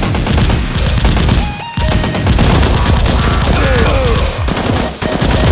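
Rapid bursts of automatic gunfire sound effects over background music, with short breaks about two seconds in and again near the end.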